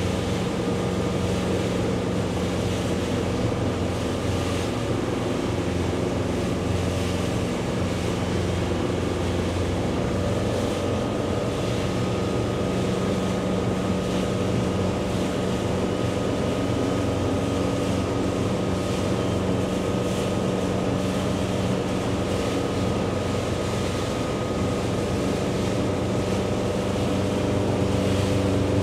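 Motorboat engine running steadily at speed, a low hum under the rush of water and wind buffeting the microphone.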